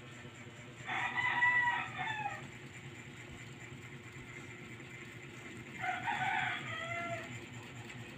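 A rooster crowing twice, each crow about a second and a half long and falling in pitch at the end, the second about five seconds after the first.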